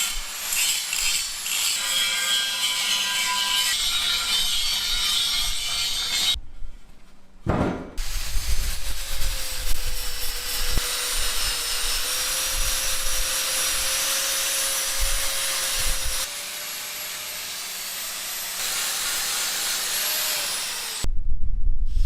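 Power tool grinding with a steady whine; near the end the whine drops in pitch as the tool slows.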